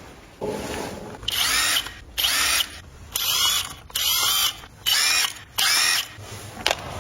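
A hand-worked mechanism making six rasping, ratchet-like strokes in an even rhythm, each about half a second long and a bit under one a second apart.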